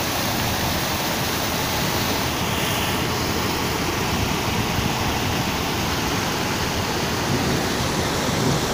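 Muddy floodwater pouring over a low concrete weir and churning in white water below it: a steady, even rush of water.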